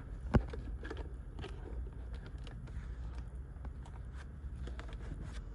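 Faint handling noises, scattered small clicks and scrapes with one sharper click about a third of a second in, over a low steady rumble.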